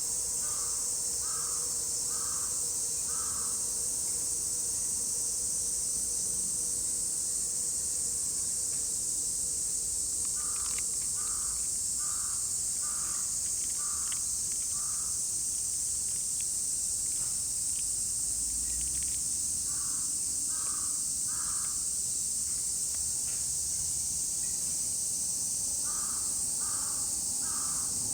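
Steady, high chorus of cicadas singing. Over it a crow caws in short runs: four caws near the start, six in the middle, then three, and three more near the end.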